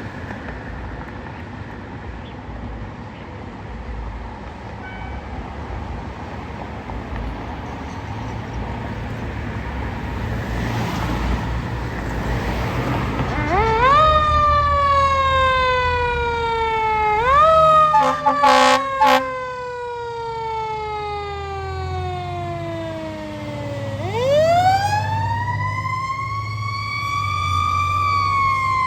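A fire apparatus's engine rumbles. About halfway through, a Federal Q2B mechanical siren winds up and coasts down, winds up again and falls slowly, and two short air horn blasts cut in between. Near the end the siren winds up again.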